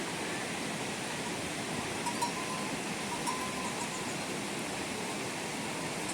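Heavy rain falling steadily, an even hiss, with a few faint ringing clinks now and then.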